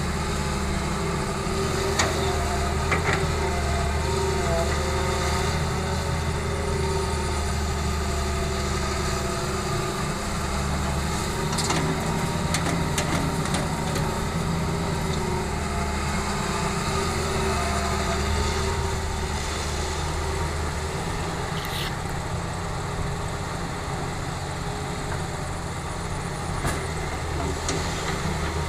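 Heavy diesel engines of an excavator and a dump truck running steadily, with a few sharp knocks scattered through.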